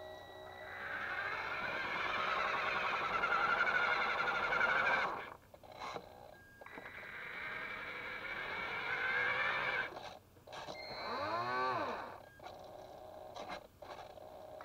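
Small electric motors and plastic gearbox of a radio-controlled toy Linde forklift whining as it drives, cutting out briefly twice. Near the end the whine rises and falls in pitch as the motor speeds up and slows down.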